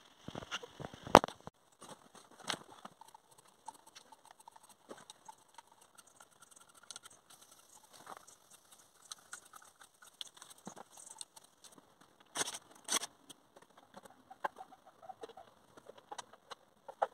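Scattered clicks and knocks of hand tools and parts being handled on a bare Rover V8 engine block, the sharpest about a second in.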